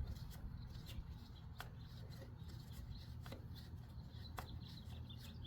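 Faint, irregular metal clicks and rubbing from a speed wrench and socket being worked on the mower's engine, a sharp click every second or so over a low steady hum.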